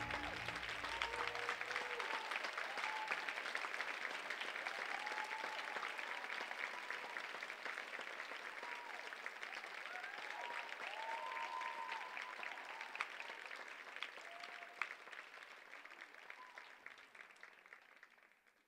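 Theatre audience applauding, with cheers and whoops over the clapping. The last low notes of the music fade out in the first two seconds, and the applause dies away near the end.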